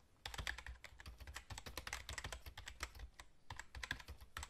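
Fast typing on a laptop keyboard: a dense, quick run of key clicks with a short lull about three seconds in.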